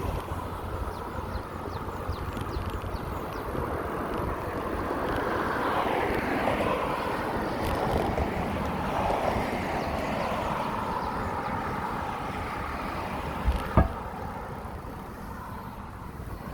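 Wind rushing over the microphone and tyre noise from a bicycle riding along a paved path, swelling in the middle, with one sharp knock near the end.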